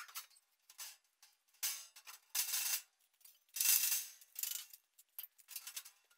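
Thin mild steel sheet sliding and scraping over a steel frame as it is shoved into position, in a series of short, irregular scrapes.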